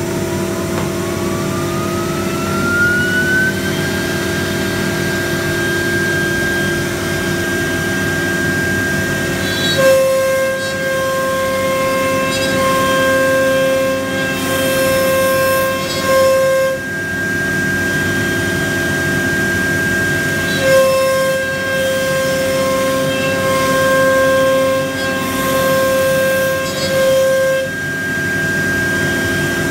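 CNC router spindle spinning up, its whine rising in pitch over the first few seconds and then holding steady over a constant machine hum. Twice, for several seconds each, a lower, stuttering whine joins in as the cutting head travels through the board.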